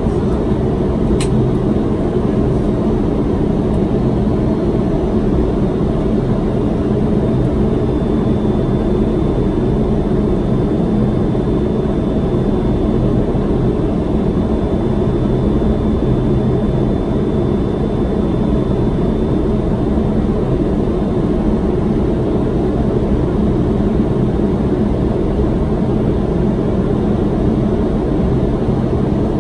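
Steady rush of airflow and engine noise inside a Boeing 767-300's flight deck on final approach, even in level throughout. A brief click sounds about a second in, and a faint high steady tone fades out about two-thirds of the way through.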